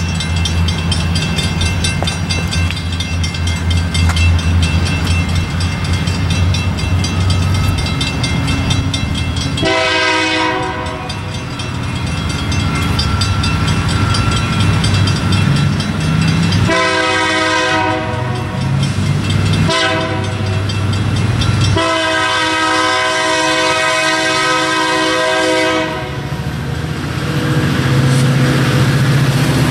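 Union Pacific diesel freight locomotives approaching with a low engine drone that grows louder near the end. Their multi-note air horn sounds four blasts, the third shorter than the others: the long-long-short-long warning for a road crossing.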